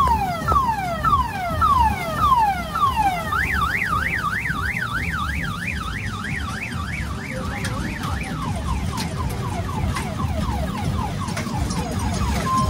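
Multi-tone electronic car-alarm siren cycling through its patterns: repeated falling sweeps, then a fast up-and-down warble from about three seconds in, then quicker falling sweeps from about eight seconds in, over a steady low rumble.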